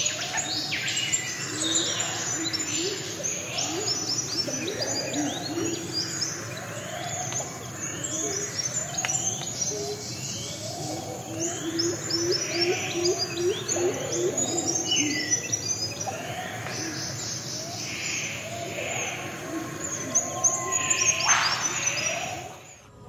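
Rainforest bird chorus: many birds chirping and whistling over one another, with a lower repeated cooing. Near the end there is one short, loud rustle.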